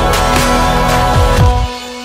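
Electronic background music: held synth chords over deep kick-drum thumps, with the bass dropping out shortly before the end.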